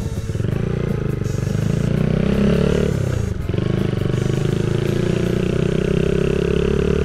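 110 cc Honda Monkey's single-cylinder engine running under way at low speed. Its revs drop sharply about three seconds in, then it settles back to a steady pull.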